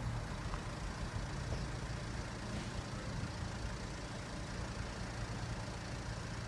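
A diesel engine running steadily, a low even hum with no change in pitch or loudness.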